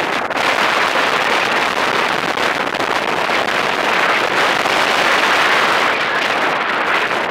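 Wind rushing over the microphone in flight under a paraglider: a steady, loud rushing noise with no pitch, slightly stronger in the middle.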